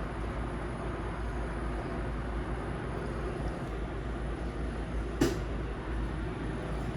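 Steady noise of a teppanyaki grill counter, with one sharp clink about five seconds in.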